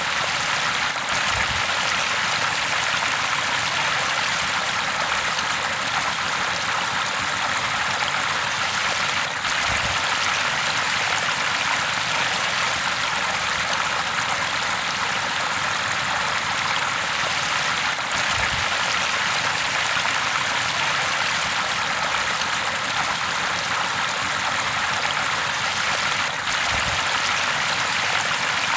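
River water flowing steadily, an even, unbroken rush of moving water.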